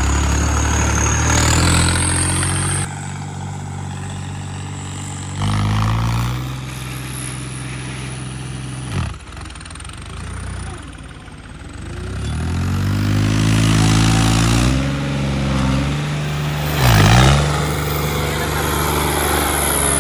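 Diesel tractor engine working hard under load, its revs shifting up and down. It dips sharply and recovers twice, once about halfway through and again near the end, with a climb in revs in between.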